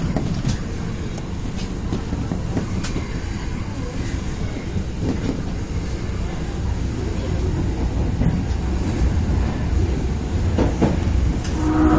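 Osaka subway 22 series electric train running, a steady low rumble with occasional clicks from the track. Near the end a pitched, multi-toned sound starts.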